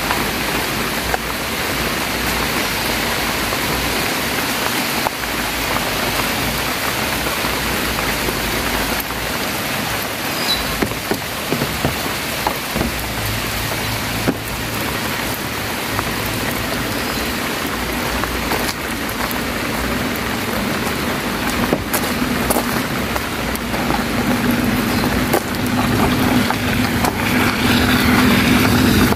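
Steady rain falling on a wet road and vegetation, an even hiss. In the last few seconds a pickup truck's engine comes up underneath, a low hum growing louder as it approaches.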